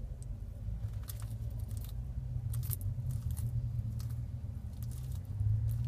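Bearded dragon biting and chewing fresh rocket (arugula) leaves: a scatter of small crisp crunches, some in quick pairs, over a steady low hum.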